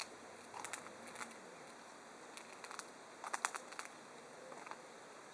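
Faint scattered rustles and small clicks over a quiet hiss, with a short cluster of clicks about three and a half seconds in.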